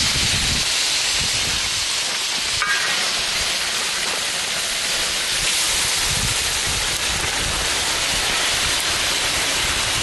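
Hot metal being quenched in water, hissing and bubbling steadily as steam boils off it.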